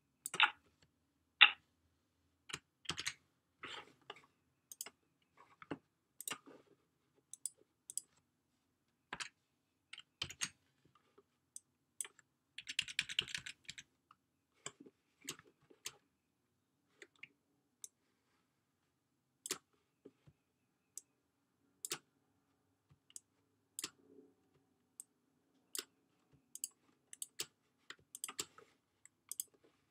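Computer mouse clicks and keyboard keystrokes, single clicks spaced irregularly, two sharper ones near the start and a quick run of clicks about thirteen seconds in.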